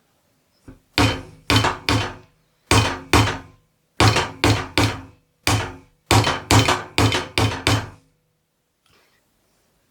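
About fifteen sharp hammer blows in quick groups of two to five, each a hard knock with a brief ring.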